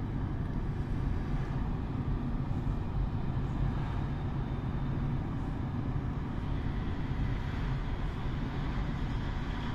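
Steady road and engine noise from inside a moving car driving through a road tunnel, with a hiss that swells near the end.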